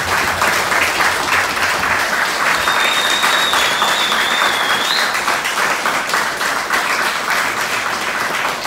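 A small group applauding steadily, dense clapping that begins suddenly just before and keeps up throughout. A high, wavering whistle sounds from about three seconds in for roughly two seconds.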